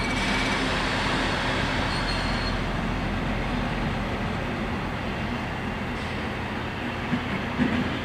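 A locomotive rolls slowly past on the station tracks with a steady engine rumble and rail noise; a few wheel knocks come near the end. A high level-crossing bell tone stops about half a second in.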